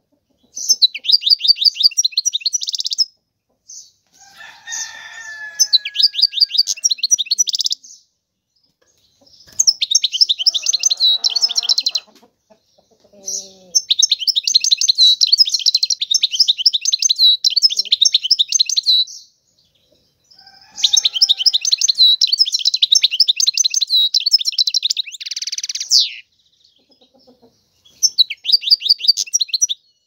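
European goldfinch singing: about six phrases of rapid, rattling trilled twitter, the longest about five seconds, separated by short pauses.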